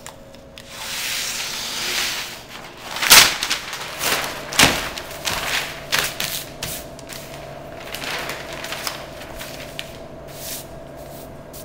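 Butcher paper being pulled off a roll dispenser and handled on a counter: a rushing paper hiss at first, two sharp knocks about three and four and a half seconds in, then scattered crackling rustles as the sheet is laid out.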